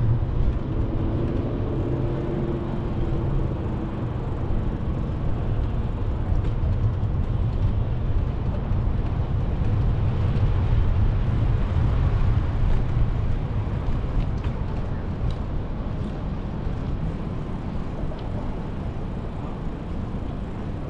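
Wind rushing over the microphone of a moving bicycle, a steady low rumble, with city traffic passing around it.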